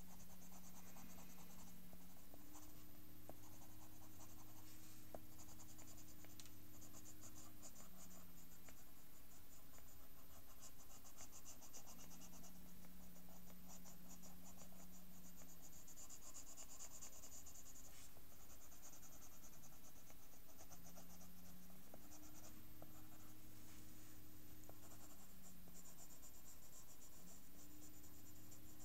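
Pencil scratching on paper in many quick short strokes, shading fur on a sketch. A faint low hum starts and stops in the background.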